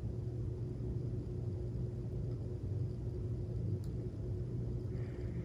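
Steady low hum and rumble of background room noise, with a faint steady tone above it and a single faint click about four seconds in.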